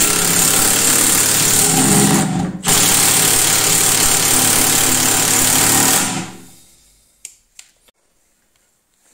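Milwaukee M18 FIW2F12 cordless impact wrench hammering a 4x90 mm wood screw into a timber beam, its rapid impacts running loud and continuous. The hammering breaks off briefly about two and a half seconds in, resumes, and stops about six seconds in as the screw seats.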